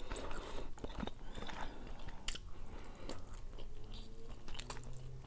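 Whole rotisserie chicken being pulled apart by hand: faint, scattered wet clicks and soft tearing of skin and meat as a wing is worked off the bird.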